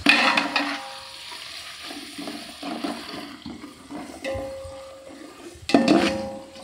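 Sliced onions sizzling in hot oil in a metal pot while a metal spatula stirs and scrapes them, the frying of onions for a biryani base. The sizzle starts loud and fades, with uneven scraping strokes and a louder burst near the end.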